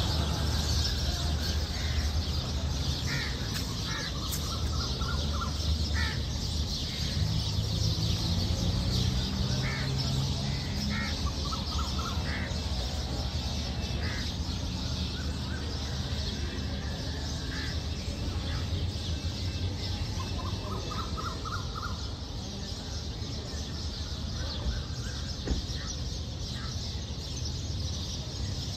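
Birds calling from roadside trees: scattered short calls and a few quick runs of notes, over a steady low hum of city traffic and a high hiss.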